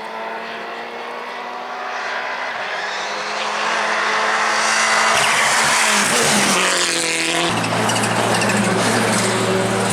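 A rally car's engine at speed, growing steadily louder over the first five seconds. Around six to seven seconds in the engine note falls in pitch, then holds a steady lower note to the end.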